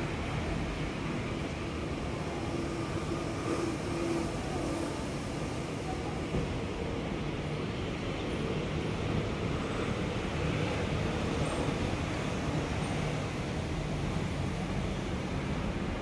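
Steady low rumble of road traffic, a continuous hum with no distinct events.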